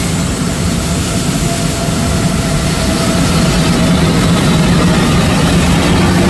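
Jet engines of a Boeing airliner running, a loud steady roar with a low hum and a faint steady whine, slowly growing louder.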